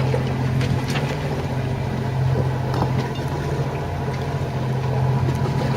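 A yacht's inboard engine running steadily under way, a constant low hum, with a few small clicks and knocks over it.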